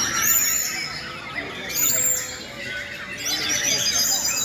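Several white-rumped shamas singing at once, competing: overlapping clear whistles and quick chattering phrases. Loud, high, held whistles stand out near the start, about two seconds in, and again near the end.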